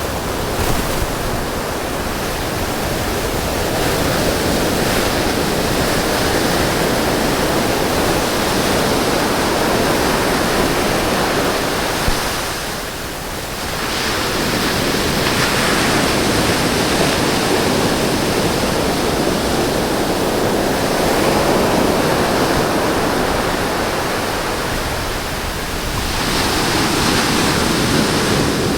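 Ocean surf on a beach: a steady wash of breaking waves that swells and ebbs, easing briefly near the middle and again shortly before the end.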